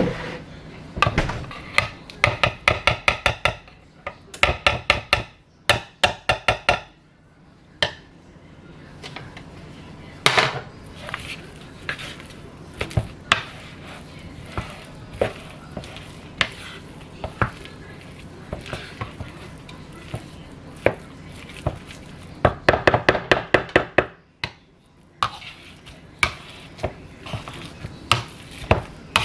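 Potato masher knocking against a pot while mashing boiled potatoes, in quick runs of knocks with scattered single knocks between.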